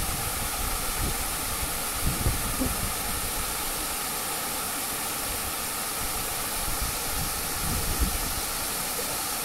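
Steady rushing of a small waterfall pouring over a wide rock ledge into a pool, with a few brief low bumps.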